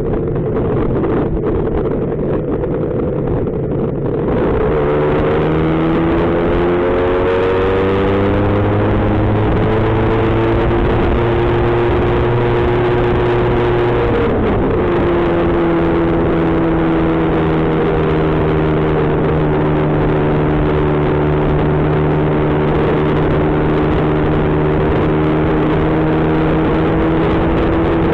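Lambretta two-stroke scooter engine running on the road, with wind noise on the microphone. About four seconds in, the engine note comes through clearly and climbs steadily. About halfway through the pitch drops suddenly, then holds and slowly rises again.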